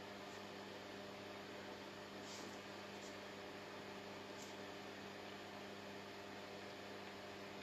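Steady low electrical hum with a faint background hiss, and a few faint short scratches of a pen writing on paper.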